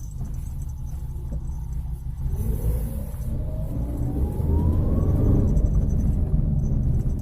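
Low droning hum and road rumble inside the cabin of a 2013 Toyota Avanza on the move, with the engine note rising as the car accelerates from about two seconds in until about five seconds in. The hum is the complaint heard at around 40 km/h, which the mechanic later traces to a badly rough wheel bearing.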